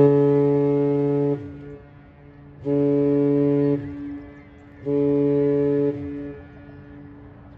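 Great Lakes freighter's horn blowing a salute: a long blast that ends about a second and a half in, then two shorter blasts, each echoing briefly. The long-and-two-short pattern is the customary master's salute.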